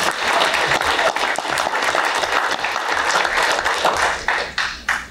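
Audience applauding: a burst of many hands clapping together that thins out to a few last separate claps near the end.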